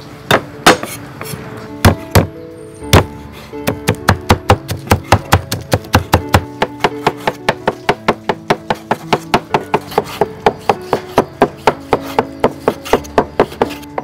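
Knife chopping food on a cutting board: a few heavy single whacks in the first three seconds, then steady, fast chopping at about four to five strokes a second. Background music plays underneath.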